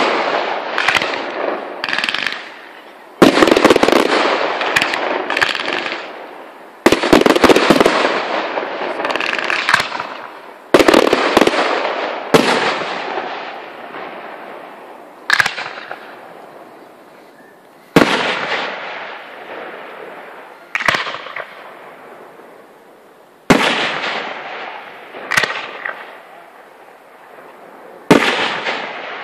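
Aerial firework shells bursting one after another, about ten sharp bangs a few seconds apart, each trailing off in a long rolling echo, with smaller pops in between.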